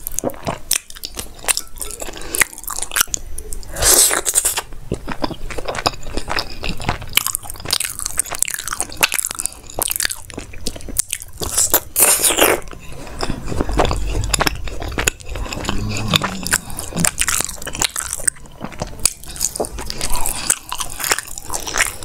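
Close-miked mouth sounds of a person eating by hand: wet chewing and lip smacking of soft food, first chole with rice and then syrupy gulab jamun, with a few louder smacks.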